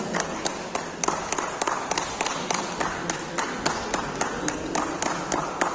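Applause from a small crowd: steady hand clapping, about five or six sharp claps a second standing out over softer clapping.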